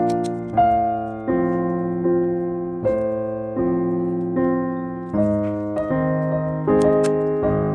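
Background piano music: chords struck about every three-quarters of a second, each fading before the next.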